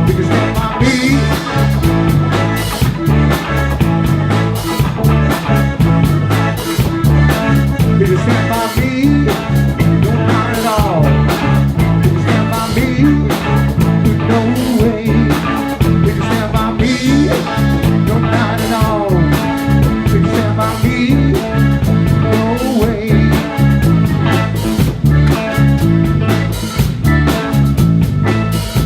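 Live rock band playing: a steady, driving bass line and drum kit, with a lead line that bends and wavers in pitch over it, most noticeably around the middle of the passage.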